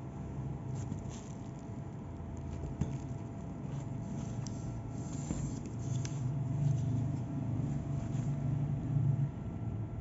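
Faint handling noise of a running shoe being turned in the hand: light rustles and small clicks over a steady low background rumble.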